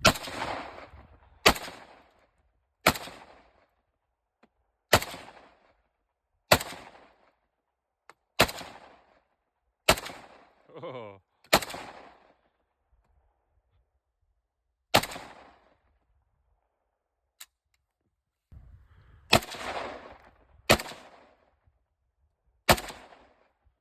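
Gunshots fired one at a time, about a dozen, spaced a second and a half to a few seconds apart, each followed by a rolling echo. There is a longer pause in the middle before the shooting resumes.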